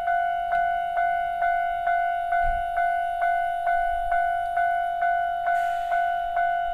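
Japanese railway level-crossing electronic warning bell ringing, an even ding-ding repeating a little over twice a second, the signal that a train is approaching. A brief hiss rises over it about five and a half seconds in.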